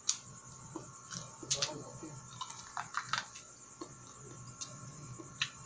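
Wet chewing and mouth smacks of someone eating sweet corn off the cob: scattered short, sharp clicks about every second among quieter chewing.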